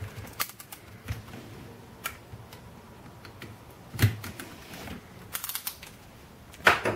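Snap-off utility knife cutting and scraping at a warranty seal sticker on a cardboard box: scattered light clicks and taps, with a sharper click about four seconds in.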